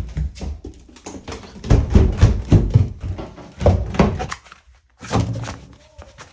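Quick thudding footsteps going down indoor stairs, mixed with knocks and rubbing from a handheld phone; the thuds come about three or four a second in the middle, then pause briefly near the end.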